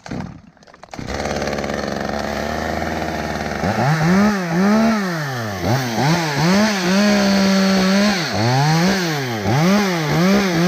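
Two-stroke chainsaw idling, then revved hard again and again from about three and a half seconds in, its pitch climbing, holding high for a second or two, and dropping back, as it cuts into a maple limb.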